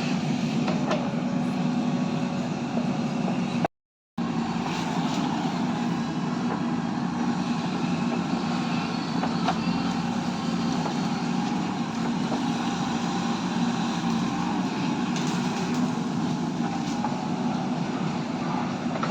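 Steady vehicle engine and traffic drone with a constant low hum, cut by a brief dropout to silence about four seconds in.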